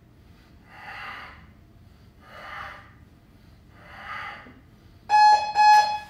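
Forceful exhaled breaths, one about every second and a half, as a man works through a kettlebell ab exercise. About five seconds in, a gym interval timer gives two loud electronic beeps, signalling the end of the 45-second work interval.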